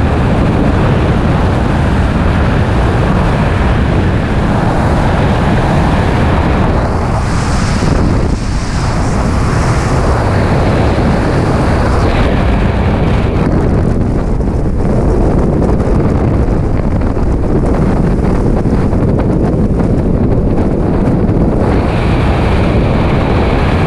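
Freefall wind rushing over a skydiver's camera microphone: loud, steady wind noise.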